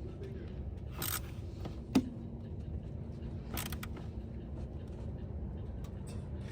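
Hand tools working on a car battery terminal clamp as it is tightened: a few faint metallic scrapes and clicks, the sharpest about two seconds in. A steady low hum runs underneath.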